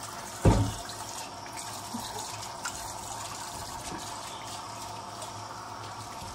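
A water tap running steadily into a sink. About half a second in, one dull thump as the thick dip drops out of a steel mixing bowl into a casserole dish.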